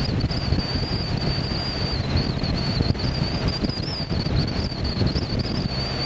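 Wind buffeting the microphone over the low rumble of a BMW flat-twin boxer motorcycle riding at road speed, with a thin, steady high whine throughout.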